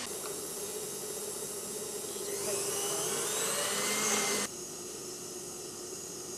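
Electric stand mixer running with its paddle beater turning in a steel bowl, a steady motor whine. About two and a half seconds in the whine rises in pitch and grows louder, then drops abruptly to a quieter steady run.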